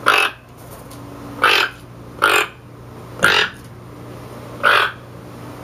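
Toco toucan calling: five short, hoarse croaks spaced irregularly about a second apart.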